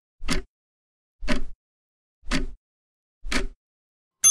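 Quiz countdown timer sound effect: a short tick about once a second, four in all, then a bright bell ding right at the end that rings on, marking time up for the answer.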